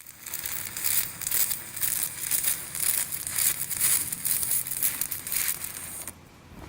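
Irregular crackling and sizzling of a stick-welding arc burning an aluminum electrode, which cuts off suddenly near the end.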